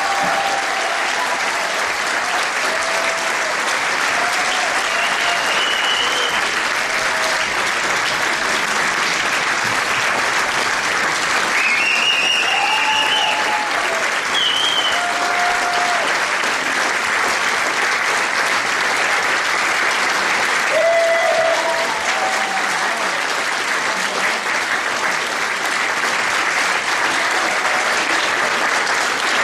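Theatre audience applauding steadily, a dense even clapping, with a few short calls rising above it.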